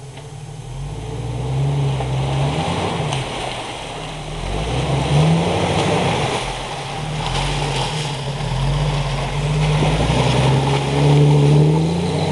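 Jeep Wrangler YJ engine revving up and easing off several times as the Jeep churns through a mud pit, with muddy water splashing and sloshing around the tyres.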